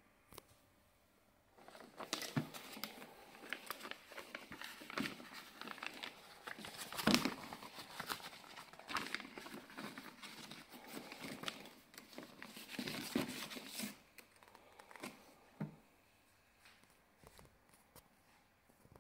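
Clear plastic sleeve crinkling as it is handled and opened to take out a paper brochure, from about a second and a half in until about fourteen seconds, followed by a few soft rustles.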